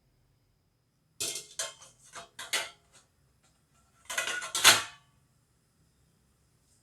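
Kitchen utensils clattering against dishes or a pan: a run of short knocks and clinks, then a louder clatter a little over halfway through.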